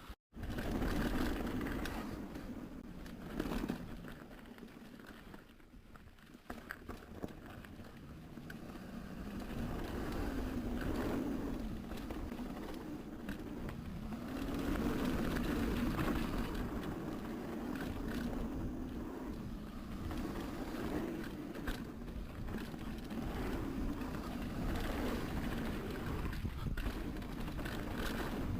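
Mountain bike riding down a dirt trail: a steady rush of tyre and riding noise that swells and fades with speed, with frequent small knocks and rattles from the bike.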